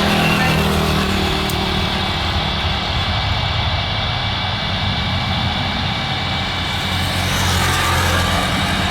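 Jet airliner engines running, a steady rumble and hiss whose high hissing part grows stronger near the end.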